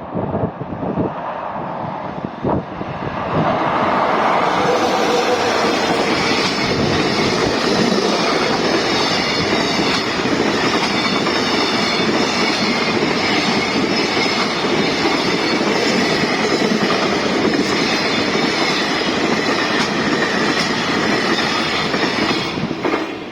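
Freight train passing. The sound builds over the first few seconds, then stays loud and steady until it starts to fall away at the very end.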